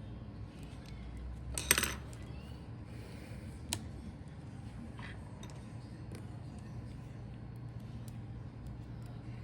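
Small hard metal parts clinking on a work surface: a brief rattle about two seconds in, a single sharp click a couple of seconds later and a few faint ticks, over a steady low hum.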